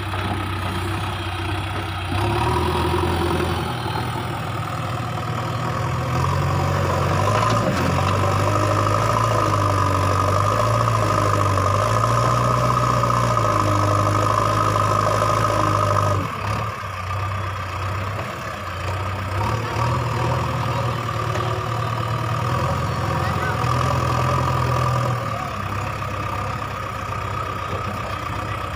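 JCB 3DX backhoe loader's diesel engine running as the machine works its front loader. The revs rise about two seconds in, drop suddenly about halfway through, and pick up again for a few seconds later on.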